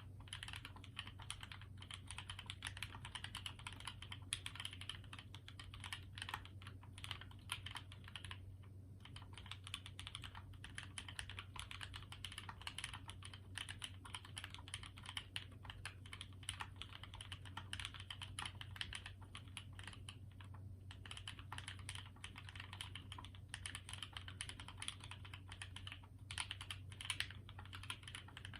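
Continuous typing on a Kei HHKB-layout mechanical keyboard with Dogikon cream-stem switches, lubed and filmed, on an aluminium half plate with GMK keycaps. The keystrokes fall in fast, dense runs, broken by brief pauses about 9 and 21 seconds in.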